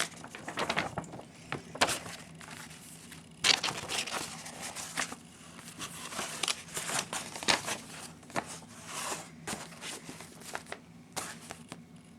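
A paper insert from a CD box set being handled, with irregular crinkling and rustling that stops near the end.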